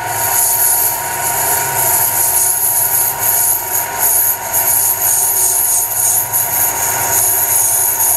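Conquest bench lathe running under power with a steady gear whine, the tool taking a cut with a high, continuous scraping hiss from the workpiece.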